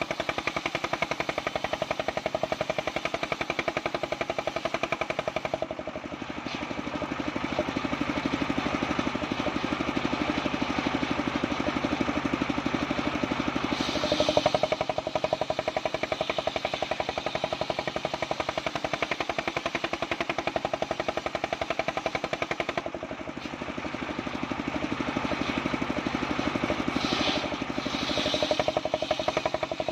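Homemade circular saw rig running with a rapid, even chugging beat while its blade cuts mindi wood. Its pitch and load shift a few times as the cut goes on.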